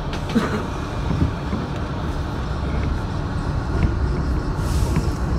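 R62A subway car of a New York City 1 train pulling out of a station: a low rumble of motors and wheels that slowly grows louder as it gathers speed, with scattered clicks from the wheels and track and a brief hiss near the end.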